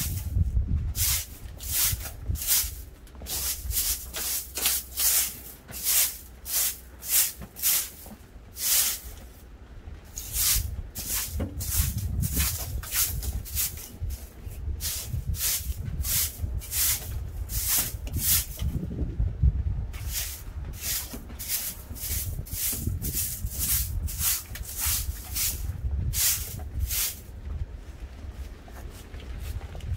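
Rhythmic crunching strokes in snow, about two a second, with a couple of short pauses, over a low rumble.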